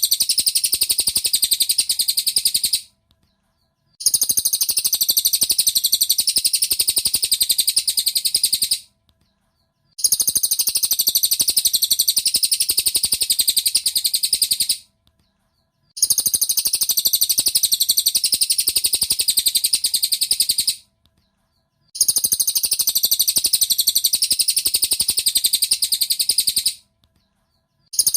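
Cililin bird song played as a looped masteran (song-tutor) recording: about five-second bursts of rapid, high chirping, each followed by a second of silence, repeating evenly.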